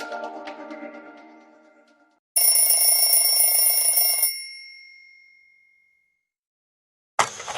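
Nokia 7230 clock alarm tones. The end of one alert fades out over the first two seconds. Then a new alert rings for about two seconds and dies away, and after a short silence the next alert starts near the end.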